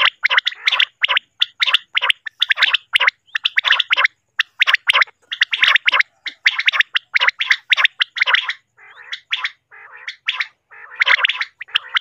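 Common quail calls from a quail-calling lure recording: rapid, bubbling runs of short calls with brief gaps, softer for a couple of seconds about nine seconds in.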